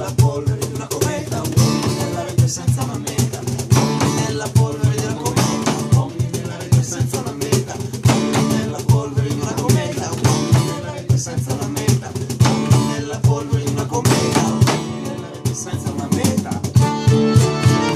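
Instrumental folk music: nylon-string and steel-string acoustic guitars strummed in a steady, fast rhythm, with a button accordion playing sustained chords and melody over them.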